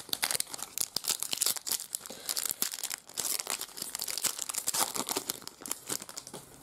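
A shiny trading-card pack wrapper being torn open and crinkled by hand, a dense crackling rustle that stops shortly before the end.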